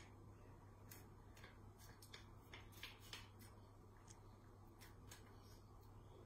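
Faint, irregular light clicks and scrapes of a spatula stirring muffin batter against a mixing bowl, over a low steady hum.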